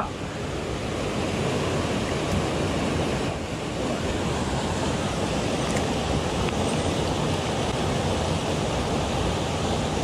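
Mountain stream water rushing over rocks: a steady, even rush of running water.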